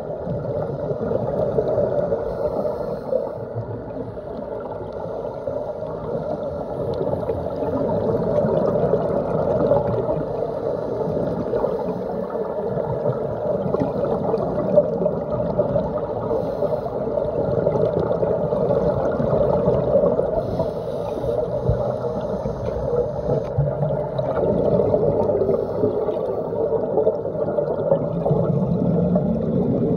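Muffled underwater sound recorded through a phone's waterproof dive case: a steady rush and gurgle of water and scuba divers' exhaust bubbles.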